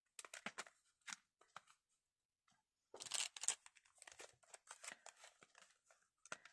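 Faint rustling and crinkling of paper being handled, as the pockets of a handmade paper folio are leafed through and a small wrapped packet is picked up. A short lull about two seconds in, then denser rustling from about three seconds.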